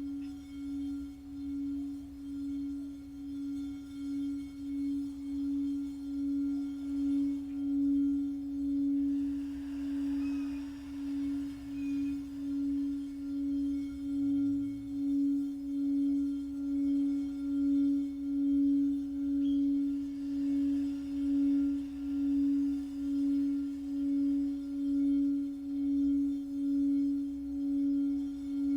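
Singing bowl sounding one sustained, steady tone that wavers in a slow, regular pulse about once a second and swells over the first several seconds.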